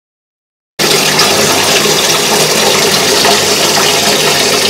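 Bathtub faucet running full, water gushing steadily into the tub; it starts suddenly under a second in.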